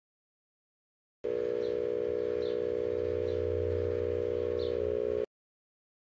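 Microwave oven running: a steady electric hum of several close tones with a low drone beneath, lasting about four seconds. It starts after a second of silence and cuts off abruptly.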